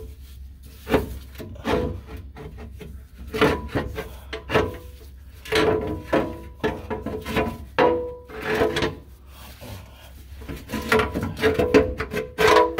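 Steel engine oil pan being worked free and slid down out from under the engine, scraping and knocking irregularly against the crossmember and frame, with the pan ringing briefly after many of the knocks.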